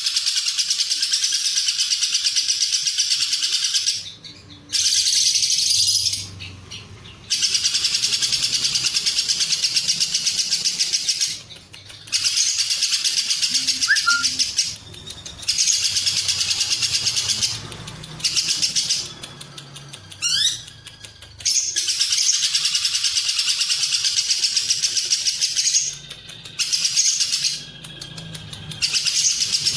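Lovebird singing its long 'ngekek' song: a rapid, high-pitched chattering trill in bouts of several seconds, broken by brief pauses about ten times.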